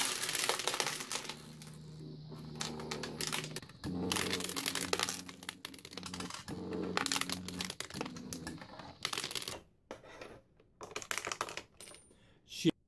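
US pennies clinking and sliding in a desktop coin pusher as coins drop through the peg board onto the pile and the pusher shoves it, over a low steady hum. After about nine and a half seconds the clinking stops, leaving a few scattered taps and one sharp click near the end.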